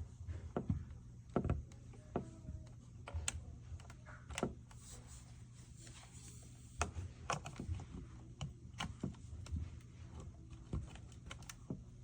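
Irregular light clicks and taps, a few dozen scattered unevenly over a low steady hum.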